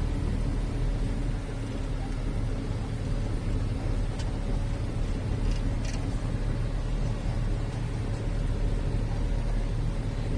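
Steady rumble of a moving vehicle's engine and road noise, with a few faint ticks about halfway through.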